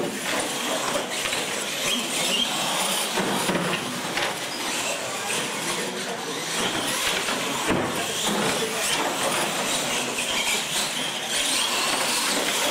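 Radio-controlled monster trucks racing on a concrete floor: a steady, high-pitched whine of motors and drivetrains with tyres scrubbing, and occasional knocks as they hit and land off wooden ramps.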